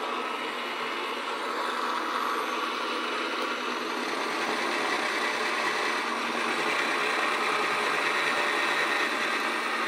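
Yonanas frozen treat maker running steadily, its motor humming and its blade grinding frozen pineapple and blueberries pushed down the chute with the plunger. It gets a little louder toward the end.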